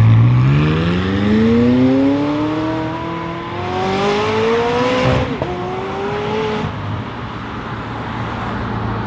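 McLaren sports car's twin-turbo V8 accelerating hard away, its note rising steadily for about five seconds. A quick upshift drops the pitch, then it climbs again briefly before fading into the distance.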